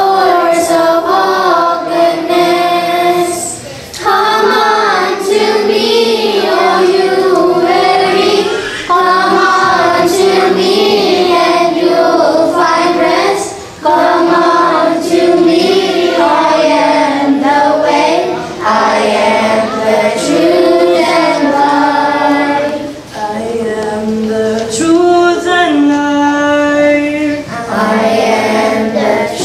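A children's choir singing a church song together through microphones, in sung phrases with brief pauses between them.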